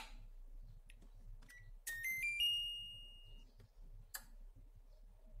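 A short electronic buzzer chime of a few quick notes stepping upward in pitch, the last note held and fading, about two seconds in. There are sharp clicks at the start and about four seconds in.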